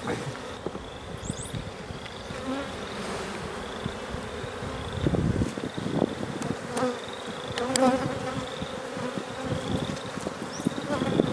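Honey bees buzzing steadily around an opened hive, with a few knocks of wooden hive boxes being handled around the middle.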